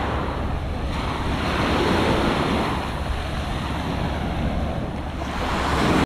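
Small ocean waves breaking and washing up the sand in swells, louder near the end, with wind rumbling on the microphone.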